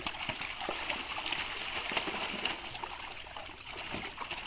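Water splashing and sloshing in quick, irregular splashes as pangas catfish crowded in a hauled-in seine net churn the shallow water and hands work among them.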